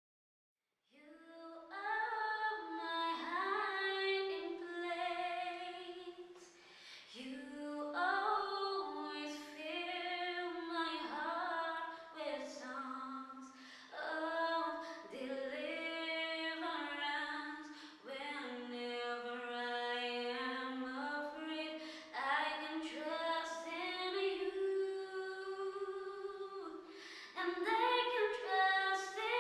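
A woman singing solo and unaccompanied: a slow melodic line in long held phrases with short pauses between them, starting about a second in.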